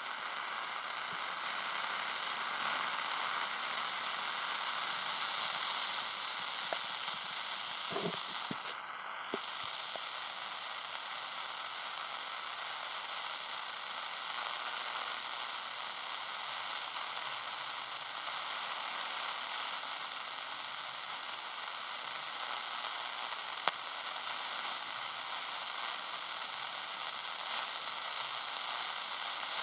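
Shortwave radio receiver giving steady static hiss, with no station coming through, while it is tuned around 14.3 MHz. A few short clicks about 8, 9 and 24 seconds in.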